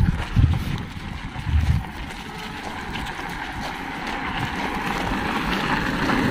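Wind buffeting the microphone in low gusts for the first couple of seconds, then a steady rushing hiss that slowly grows louder.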